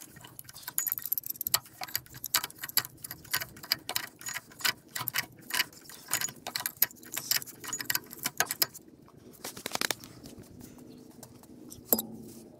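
Rapid, irregular metal clicks and clinks of a pipe wrench working a threaded steel pipe fitting on a water separator dump valve. The clicking stops about nine seconds in, and a single knock comes near the end.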